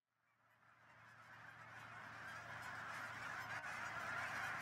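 A huge flock of geese honking all at once in a dense, continuous chorus, fading up from silence and growing steadily louder.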